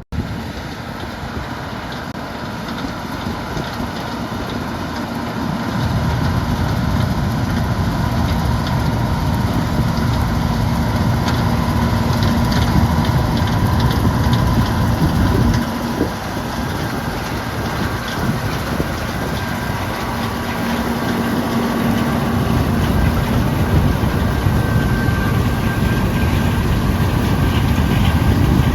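John Deere 7720 combine running while harvesting soybeans, its engine steady and heavy. It grows louder about six seconds in, eases briefly around the middle, then builds again near the end.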